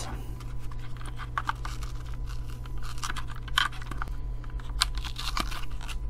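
Small clicks and scrapes of a 9-volt battery being snapped onto its clip and pushed into a plastic battery compartment, over a steady low hum.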